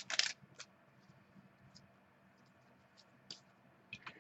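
Faint rustles and light clicks of trading cards being handled. There is a short burst about half a second in, scattered soft ticks, and a few more clicks near the end.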